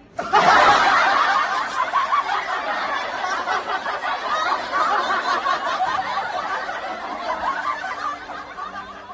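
Many people laughing together, like an added laugh track, loudest at the start and slowly dying away.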